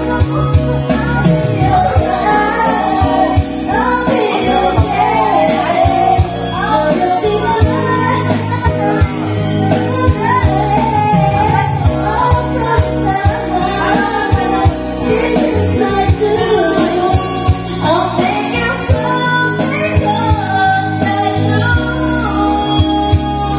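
Karaoke: one voice singing a melody into a microphone over a loud backing track with a steady bass line.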